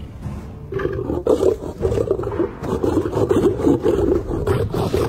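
Several young male desert lions growling and snarling as they fight over a small kill. The growling starts about a second in and keeps on, loud and rasping, with no break.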